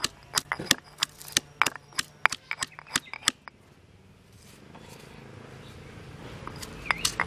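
Stone pestle pounding green chillies in a stone mortar, sharp stone-on-stone knocks about three a second. The pounding stops after about three and a half seconds while the chillies are pushed down by hand, and starts again near the end.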